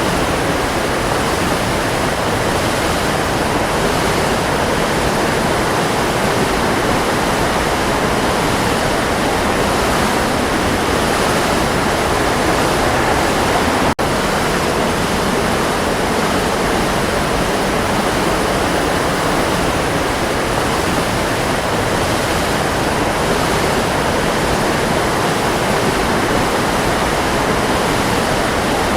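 Waterfall, water falling and splashing in a steady, loud, even rush, with a momentary dropout about halfway through.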